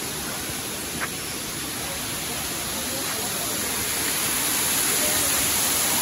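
Waterfall rushing down a rock face: a steady hiss of falling water that grows louder over the second half.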